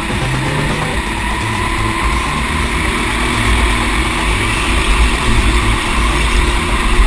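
Go-kart engine running at racing speed, recorded onboard the moving kart, with a steady low rumble.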